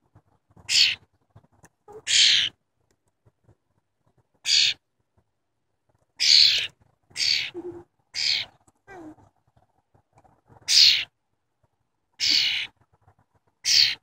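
A young cowbird calling close by: about nine short, harsh, raspy calls, spaced one to two seconds apart, the repeated calls of a fledgling begging.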